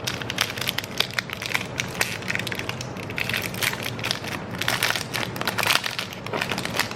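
A chocolate bar's wrapper crinkling and crackling as it is handled and pulled open, in a dense, irregular run of crackles.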